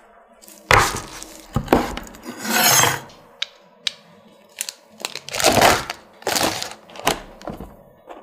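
Nougat studded with almonds and freeze-dried strawberries being handled, pressed and cut, giving a string of sharp cracks and crunches, with a longer rasping scrape about two and a half seconds in.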